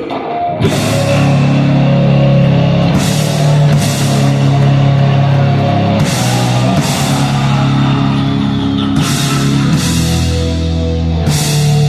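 Live heavy rock band playing an instrumental passage: distorted electric guitars and bass holding low chords, with drum kit and cymbal crashes about every three seconds.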